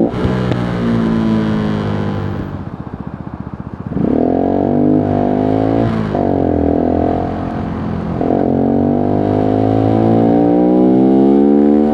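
Voge 125R's 125 cc single-cylinder engine coming off the throttle and slowing to a low, pulsing near-idle, then accelerating hard about four seconds in. Two quick upshifts follow about 6 and 8 seconds in, each time the revs climbing again.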